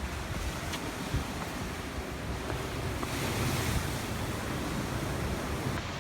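Ocean waves breaking and washing in, with wind rumbling on the microphone; the surf swells louder about halfway through.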